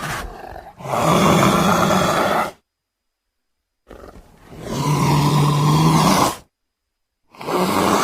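Leopard roaring, three long roars of about two seconds each, cut apart by abrupt silences. The third begins about seven seconds in.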